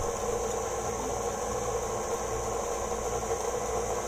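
KitchenAid Artisan stand mixer's motor running steadily, an even whirring hum with no change in speed.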